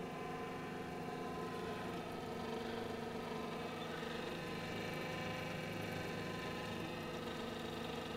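NEMA 23 Compumotor stepper motor turning a microscope's fine-focus knob through a timing belt, running at a constant speed with a steady whine of several tones.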